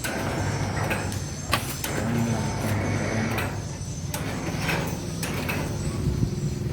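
Heavy machinery's engine running steadily, with sharp metallic clanks and knocks at intervals.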